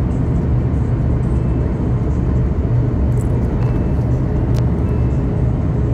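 Steady roar of an airliner's turbofan engine and rushing air heard inside the passenger cabin, with a low hum underneath, as the plane descends on approach to land.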